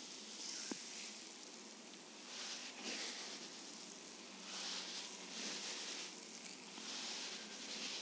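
Oiled hands gliding and pressing over bare skin of the lower back: a soft swishing friction that swells and fades in slow strokes every second or two.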